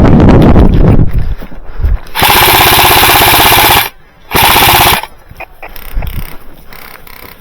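Wind buffeting the microphone at first, then an airsoft light machine gun firing two rapid full-auto bursts: one about a second and a half long, then after a short pause a second of about half a second.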